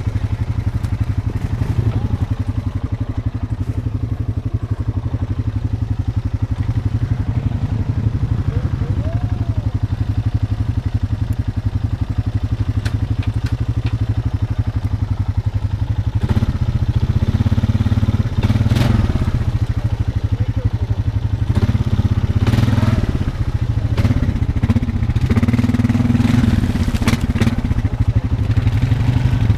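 Honda Foreman ATV's single-cylinder four-stroke engine pulling under load through deep mud, steady at first, then revving up and down repeatedly from about halfway, with the wheels spinning and throwing mud.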